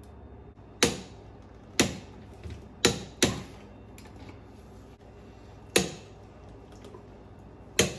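Hand tools knocking against the metal gimbal housing of a Mercruiser Alpha One stern drive: six sharp knocks at uneven intervals, each with a short ring.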